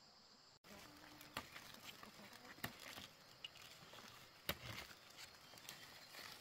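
Green bean pods being snapped off the vine by hand among rustling leaves, with a few sharp snaps. Insects chirp steadily for the first half second, before an abrupt change in the sound.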